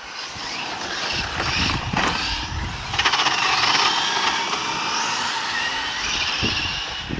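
Brushless electric RC cars running at speed on asphalt: a high motor whine rising and falling with the throttle over tyre hiss, with a short burst of clicks about three seconds in.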